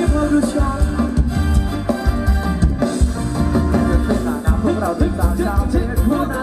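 Live band playing Thai ramwong dance music with a steady drum beat and a melody over it.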